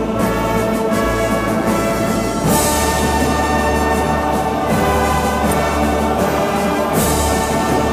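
Orchestral background music with brass, new chords coming in about two and a half seconds in and again near the end.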